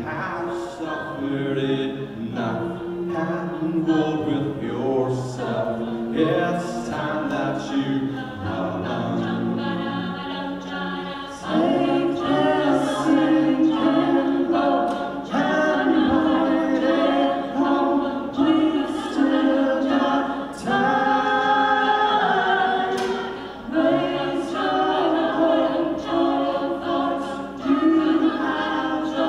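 Mixed-voice a cappella group singing in close harmony through microphones, with no instruments. The singing grows fuller and louder about a dozen seconds in.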